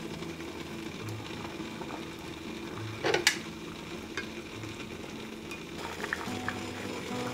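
Bagels boiling in a pan of water, with a steady bubbling hiss. About three seconds in, a brief loud splash as another bagel is dropped into the boiling water, then a few light clicks of a spatula.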